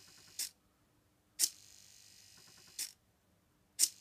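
Hobby servo and stepper motor of a homemade Arduino turntable rig cycling on first power-up, with the servo turning the wrong way. A sharp click starts about a second and a half of steady buzzing whine with a short run of faint ticks near its end. Another click then brings about a second of quiet, and the cycle repeats.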